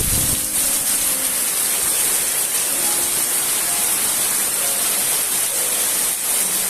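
Heavy rain falling steadily: a dense, even hiss of a downpour.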